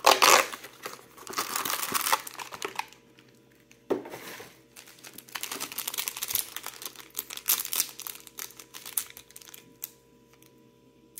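Toy packaging crinkling and tearing as a small figure's wrapper is opened by hand, in irregular bursts of crackling that die away near the end.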